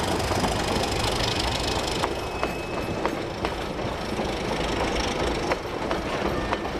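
Heritage train passenger carriages rolling past on the line, a steady running noise broken by sharp wheel clicks over the rail joints at irregular intervals.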